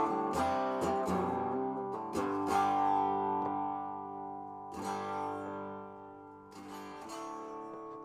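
Electric guitar played through the DOD 250-based overdrive channel of a handmade two-channel pedal: about half a dozen strummed chords, each left to ring and fade slowly, with a longer-fading chord in the middle.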